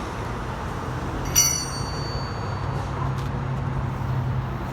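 Steady vehicle and road traffic noise with a low engine hum. About a second and a half in comes a single sharp metallic clink that rings briefly, a metal tool striking metal during the wheel work.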